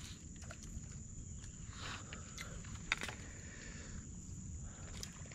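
Faint woodland ambience: a steady high insect drone, with light clicks and taps as fishing rods are handled and one sharper tick about three seconds in.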